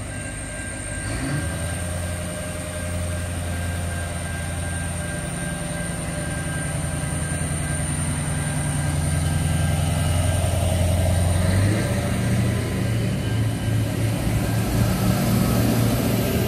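Adelaide Metro 3000-class diesel railcar engines running under power as the two-car train pulls along the platform and passes close, getting steadily louder. The engine note steps up about a second in and changes again about twelve seconds in.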